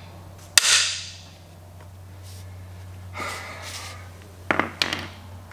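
Hammer blows on the end of a cam bearing installer's driver bar, driving a camshaft bearing into an engine block. One blow rings out metallically about half a second in, then two quicker blows follow near the end.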